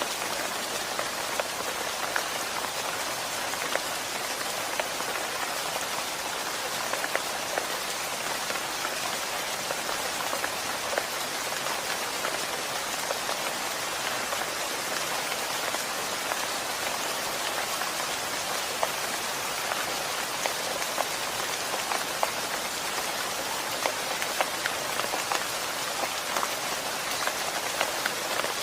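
Steady rain falling, with an even hiss and many individual drops striking close by as sharp ticks.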